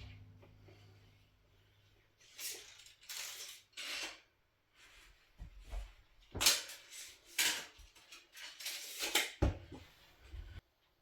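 A series of separate light clinks and knocks, like hard objects being handled and set down, irregularly spaced over several seconds.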